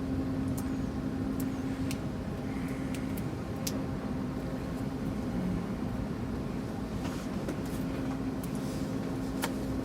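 Steady hum and din of a busy hall, with a few small, sharp clicks of tools and parts being handled on a laptop being taken apart.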